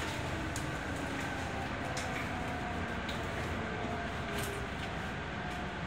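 Toyo Rapid Railway 2000 series electric train running, heard inside the passenger car: a steady rumble of wheels on the rails, with a faint motor whine drifting down in pitch as the train slows toward a station.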